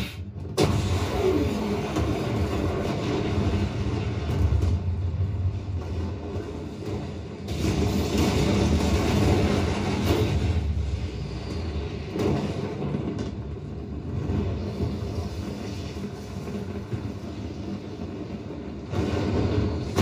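Soundtrack of a huge explosion and the roaring fire after it: a deep, continuous rumble that swells several times and surges again near the end. It is played through only four Klipsch in-ceiling Dolby Atmos speakers.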